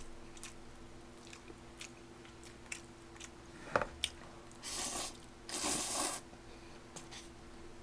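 A person slurping spicy bibim-myeon noodles from a pot: two long slurps just past the middle, amid light chewing and small scattered clicks.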